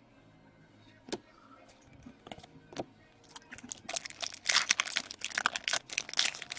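A few light clicks, then from about halfway in, the plastic and foil wrappers of trading-card packs crinkling and tearing as a pack is torn open by hand.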